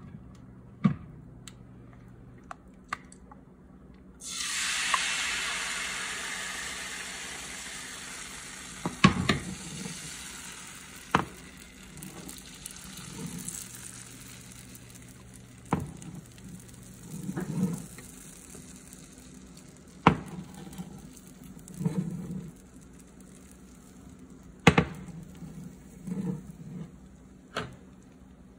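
Crepe batter hitting a hot oiled nonstick frying pan starts sizzling suddenly about four seconds in, the sizzle fading slowly over several seconds as the thin crepe begins to cook. Sharp knocks and duller thuds of the pan and utensils come every few seconds.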